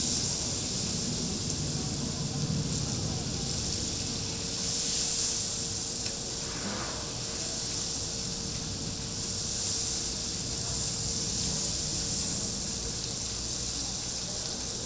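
Food sizzling on a hot teppanyaki iron griddle, a steady hiss that swells and eases every few seconds.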